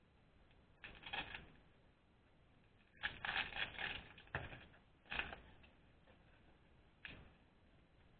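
Toy blind-box packaging being opened and handled by hand: several short bouts of crinkling and crackling, the longest starting about three seconds in.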